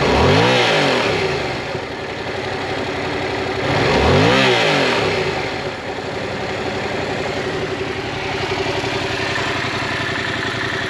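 2018 Yamaha MT-07's 689 cc parallel-twin engine, stationary in neutral, revved twice with quick throttle blips, once at the start and again about four seconds in, each rising and falling back. It then settles into a steady idle.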